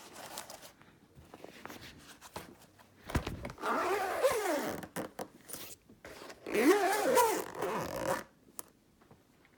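A zipper pulled along twice, each pull lasting about one and a half to two seconds, with a pitch that rises and falls.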